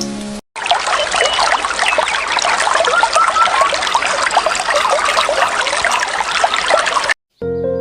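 Water trickling and babbling steadily, like a small stream running over stones. It cuts in sharply about half a second in, right after a brief snatch of music, and stops abruptly about seven seconds in.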